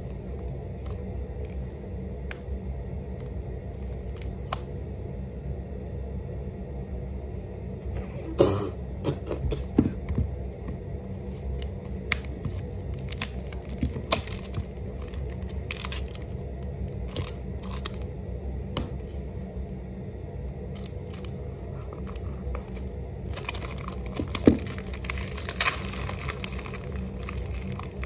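Handling noise from a boxed eyeshadow palette being unpacked by hand: scattered clicks, taps and scrapes of cardboard and plastic, turning into steadier crinkling and tearing of the packaging near the end, over a steady low hum.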